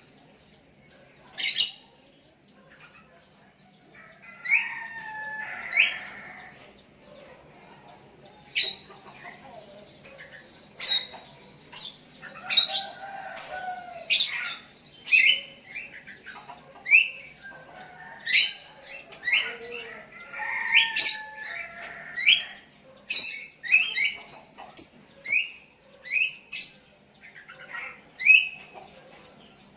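Sooty-headed bulbuls calling back and forth, a run of short sharp chirps and slurred whistled phrases repeated irregularly, several birds answering one another.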